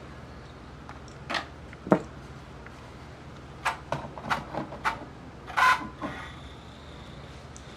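Pioneer CT-W840R cassette deck giving a run of irregular mechanical clicks and clunks over a steady low hum: a sharp knock about two seconds in, a cluster of clicks around four to five seconds, and a short rattle near six seconds.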